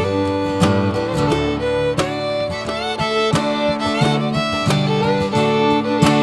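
Background music: an upbeat country/bluegrass-style tune with plucked guitar and a fiddle melody, with a steady beat.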